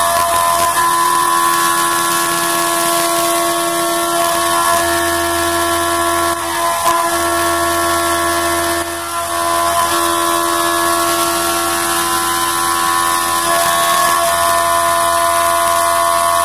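CNC milling machine's spindle and end mill cutting aluminium under flood coolant: a steady whine made of several fixed tones, with brief dips about six and nine seconds in.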